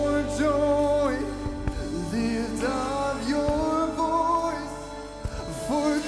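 Live pop band playing a song, with sung melody over electric guitar; the low end thins out for a few seconds in the middle.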